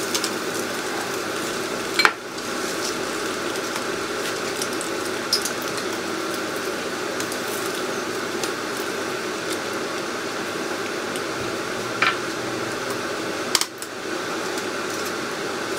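Egg-white omelet frying in a nonstick pan with a steady sizzle, and a few sharp clinks of the spatula against the pan.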